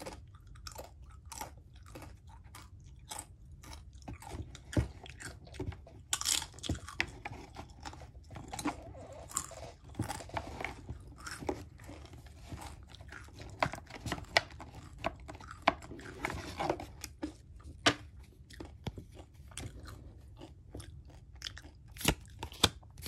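Crunchy tortilla chips being chewed close to the microphone: a string of short crackling crunches, two or three a second at first, with stretches of rustling about six seconds in and again around sixteen seconds.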